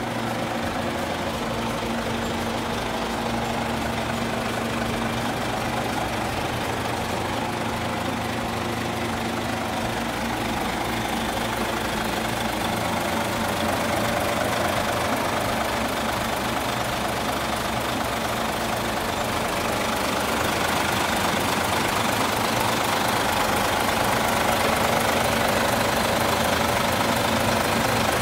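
Isuzu Gala coach's rear-mounted diesel engine idling steadily with the engine bay open, growing a little louder about halfway through and again near the end.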